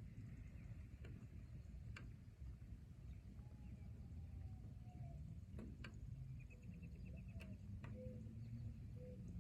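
Quiet forest-and-rain ambience: a steady low rumble with scattered sharp ticks like falling drops, a few faint thin calls, and a short rapid trill about two-thirds of the way through.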